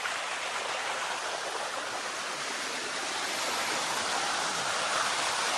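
Waterfall: cascading water rushing steadily over rock.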